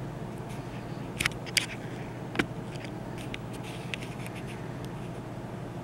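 Steady low electrical hum and hiss of room tone, with a few faint clicks and small scrapes in the first half.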